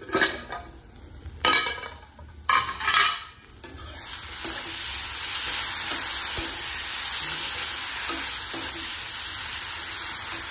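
A few loud metal clanks in the first few seconds, as the lid comes off. Then onion-tomato masala sizzles steadily in oil in a kadhai while it is stirred and scraped with a steel spatula.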